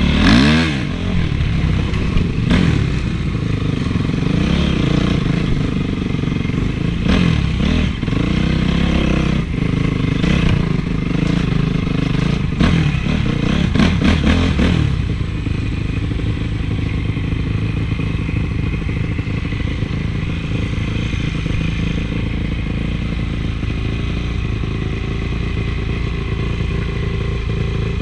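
Honda CRF450 motocross bike's four-stroke single-cylinder engine revving up and down repeatedly for about fifteen seconds, then running steadier and lower for the rest.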